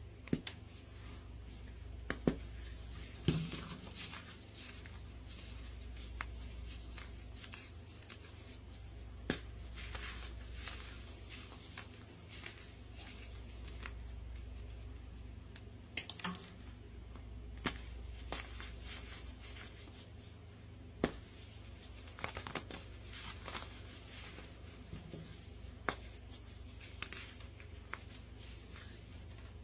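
Crunching and crumbling as fingers break and crush a block of reformed baking soda into powder, with sharp snaps scattered throughout as pieces crack off, over a steady low hum.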